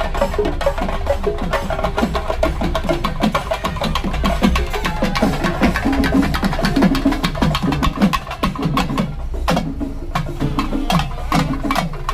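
Rapid, continuous drumming by a Kerala festival percussion ensemble: fast, dense stick strokes with some pitched low drum tones.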